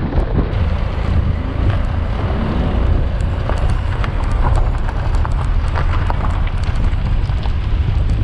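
Wind buffeting the microphone over the steady low rumble of a car driving along a mountain road.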